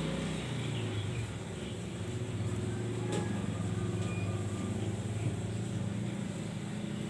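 A motor's low steady drone, its pitch stepping slightly lower about half a second in, with one sharp click about three seconds in.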